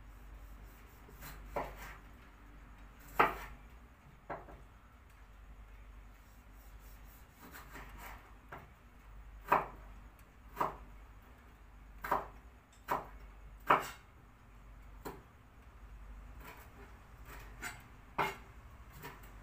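Kitchen knife dicing tomatoes on a cutting board: irregular sharp knocks of the blade striking the board, a few seconds apart at first, then coming more often from about halfway through.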